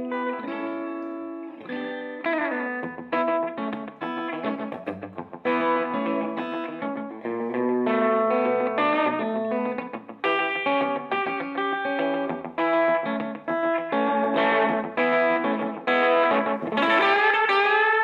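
Gretsch G5422 hollow-body electric guitar played solo in rockabilly style: a steady run of picked single notes and chord stabs, growing faster and louder in the last few seconds.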